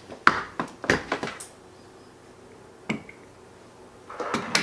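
MIG welding gun and its cable being handled and set down on a table: several sharp knocks and clatters in the first second and a half, a single click about three seconds in, and a short burst of rustling near the end.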